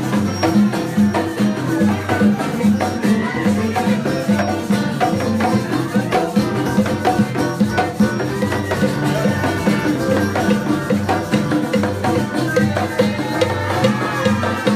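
Live Latin music from a small band: hand-held frame drums (panderos) beaten in a steady, dense rhythm, with shakers and a stringed instrument.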